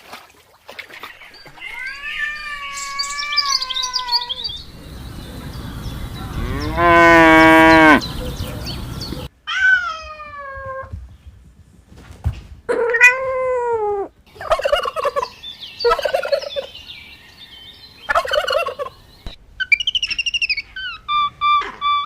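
A run of separate animal calls, one after another with short gaps: several rising-then-falling calls, a loud drawn-out call about seven seconds in, then shorter calls and choppy bursts toward the end.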